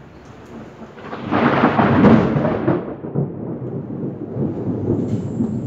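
Thunderclap: a sudden crack about a second in that rolls on into a long, uneven low rumble.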